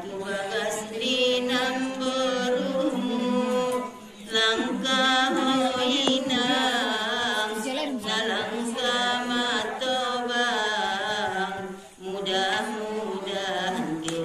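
Women singing a Mandailing kasidah without instruments, a lead voice through a microphone carrying long, wavering, ornamented melodic lines. There are short breaks between phrases about 4 and 12 seconds in.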